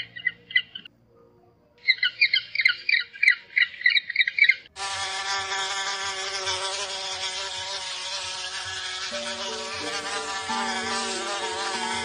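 Two runs of rapid, high-pitched, repeated chirping calls from a king penguin chick. At about five seconds in they give way abruptly to the steady wing buzz of flies and a wasp.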